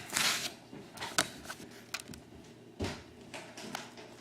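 Trading cards being handled: a brief sliding swish of a card at the start, then a few light clicks and a soft knock as cards are set down.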